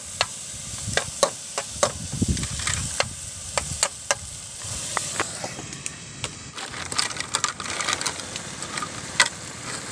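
A metal spoon stirs and scrapes in an aluminium wok of oysters simmering in broth, giving irregular sharp clinks over a steady hiss of the bubbling liquid.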